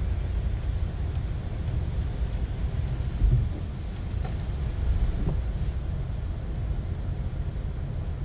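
Steady low rumble of a conveyor tunnel car wash heard from inside a waiting car, with the wash machinery running and one short thump about three seconds in.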